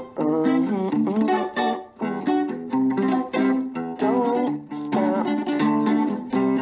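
Background music: a song led by plucked guitar.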